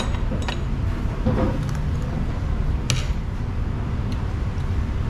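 A steady low rumble with a few short, sharp clicks of cutlery against a plate; the loudest click comes about three seconds in.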